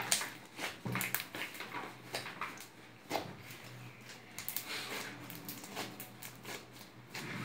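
Large 1-kilo slime being squeezed and stretched in the hands, giving irregular wet squelches and small pops.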